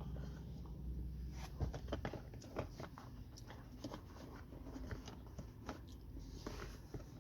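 Small scattered clicks, taps and rustles of a pocket mat being pushed and repositioned in a car's storage cubby, quiet and irregular.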